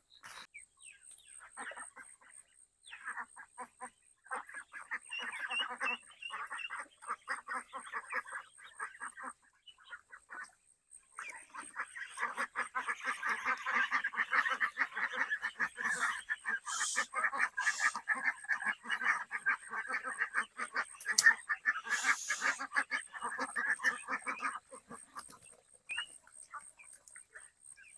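A flock of domestic ducks quacking in a rapid, clamouring chorus, coming in two bouts: a fainter one in the first few seconds, then a louder, denser one from about eleven seconds in, stopping a few seconds before the end. The ducks are calling as feed is brought to them.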